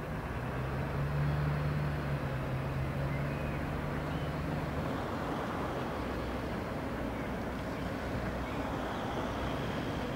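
An approaching locomotive-hauled freight train: a steady low locomotive drone and rumble, with a deeper humming tone that fades out about halfway through.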